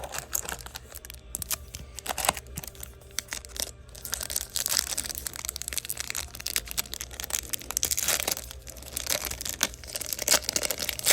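Crinkling and tearing of a foil trading-card pack wrapper, with scrapes and clicks of thick chrome cards being handled.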